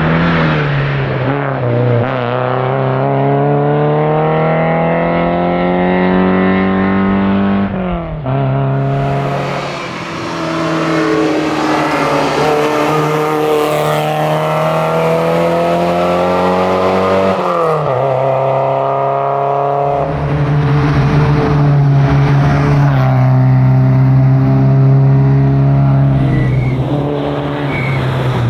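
Porsche 944 engine under hard acceleration. The pitch climbs steadily and drops sharply at upshifts about eight and seventeen seconds in, then runs more evenly near the end.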